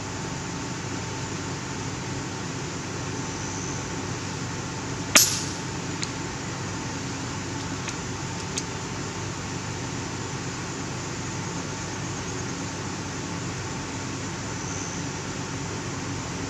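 A .30-calibre FX Impact PCP air rifle fires one shot about five seconds in: a sharp crack with a short echo, the loudest sound here. A few faint clicks follow over the next few seconds, over a steady background hum.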